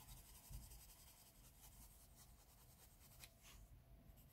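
Very faint scratching of a Derwent Coloursoft coloured pencil shading on paper, a few light strokes against near silence.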